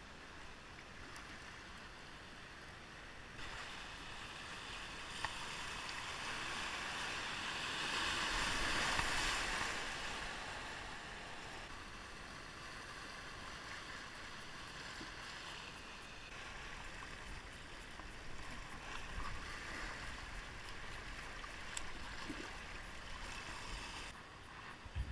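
River water rushing and splashing around an inflatable kayak as it runs a riffle and small rapid, swelling loudest about a third of the way through, with a brief click about five seconds in.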